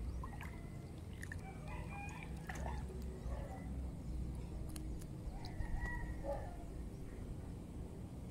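A rooster crowing twice, first about a second in and again past the middle, over a steady low rumble.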